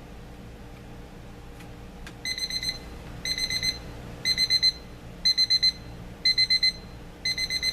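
Seiko QHE083SLH travel alarm clock's beep alarm sounding, starting about two seconds in: bursts of rapid high-pitched beeps, about one burst a second, pretty piercing. The first bursts are a little quieter than the ones that follow.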